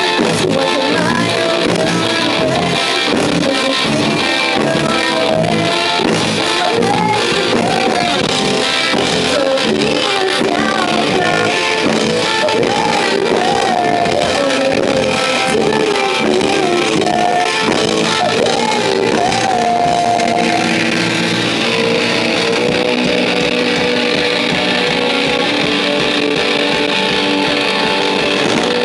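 A rock band playing live: electric guitar, drum kit and a singer. The singing stops about two-thirds of the way through, and sustained keyboard tones carry on with the guitar and drums.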